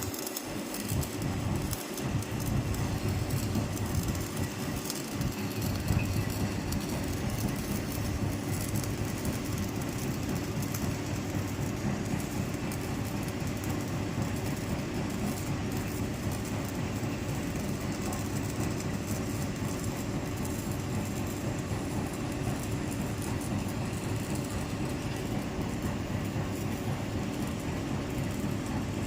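Stick-welding arc of an E6013 electrode crackling steadily while laying the second, cover pass on a galvanized iron pipe-to-socket-flange joint.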